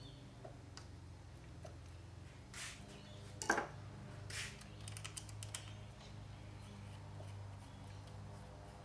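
Light clicks and rattles of hands handling the metal throttle linkage and cables on a motorcycle's carburettor bank, with one sharper click about three and a half seconds in and a few quick ticks a little later. A steady low hum runs beneath.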